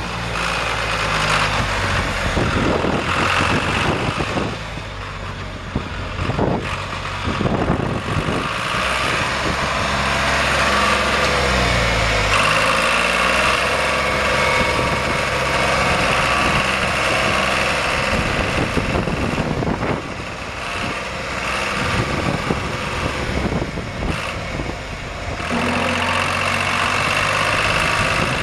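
John Deere 300 tractor's three-cylinder diesel engine running, its speed rising and falling about ten seconds in and changing again later.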